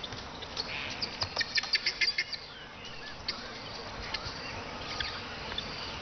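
Natural wildlife ambience of birds and insects: a quick run of sharp chirps about a second in, then scattered single bird calls over a faint, steady background of insects.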